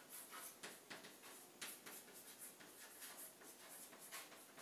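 Chalk writing on a chalkboard: faint, irregular scratches and taps as each letter is stroked out.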